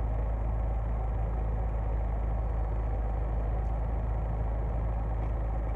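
Steady low rumble of a parked car's engine idling, heard from inside the cabin.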